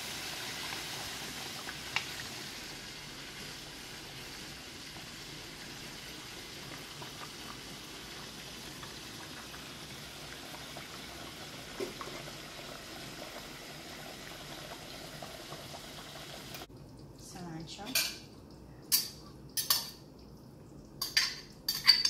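Chicken curry simmering in a nonstick frying pan, a steady hiss of bubbling sauce, with a couple of light knocks of a wooden spoon against the pan. Near the end the hiss stops and a spoon clinks sharply several times against a plate and the pan as chopped herbs are spooned in.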